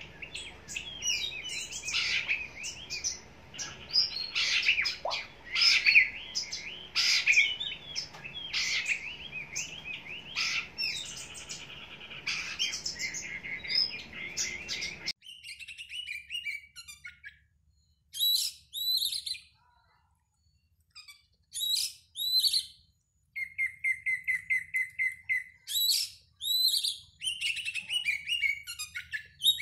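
Oriental magpie-robin (kacer) song: loud, varied whistled phrases, dense and overlapping at first. About halfway through the recording cuts to a cleaner stretch of separate phrases with looping high notes and a fast run of repeated notes.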